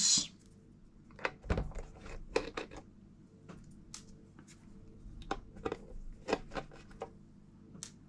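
Scattered light clicks and taps of small screws and a precision screwdriver being handled and set down on a hard work surface, one slightly louder knock about a second and a half in.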